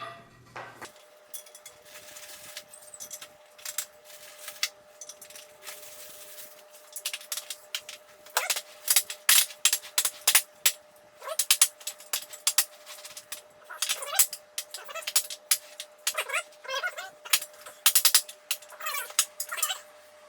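Chair casters being worked and pushed into the sockets of a desk chair's wheelbase: a run of sharp clicks and knocks that gets busier about halfway through, with short squeaks as the caster stems are forced in. A faint steady hum lies underneath.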